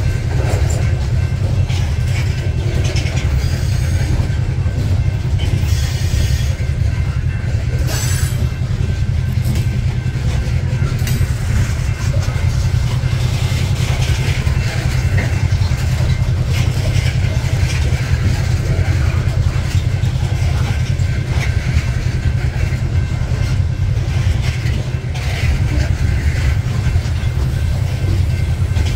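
Norfolk Southern coal hopper cars rolling past close by: a steady deep rumble of steel wheels on rail, with brief sharper sounds around six and eight seconds in.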